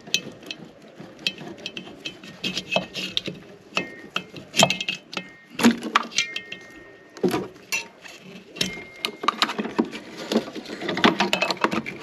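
Gloved hands working the relays off a Sub-Zero refrigerator compressor's terminals. There is a busy run of small clicks, knocks and rattles of plastic, wire and copper tubing, with a few brief faint squeaks.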